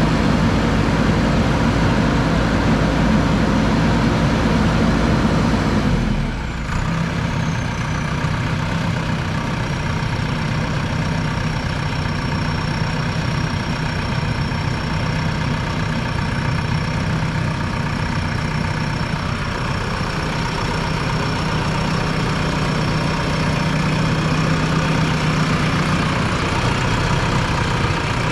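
JCB backhoe loader's diesel engine running steadily. About six seconds in the sound changes abruptly, and from about nine seconds a thin high whine runs over the low engine hum.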